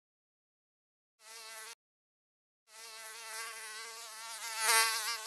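A fly buzzing in two passes: a short buzz about a second in, then a longer buzz with a wavering pitch that grows louder near the end and cuts off suddenly.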